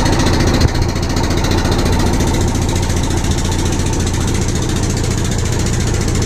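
Small wooden fishing boat's engine running steadily while under way.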